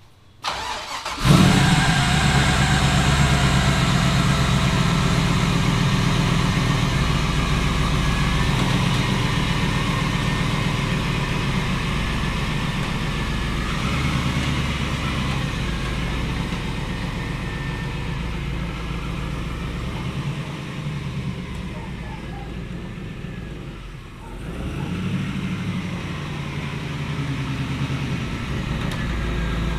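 A vehicle engine starts up about a second in and then runs steadily. It dips briefly about three-quarters of the way through, then picks back up.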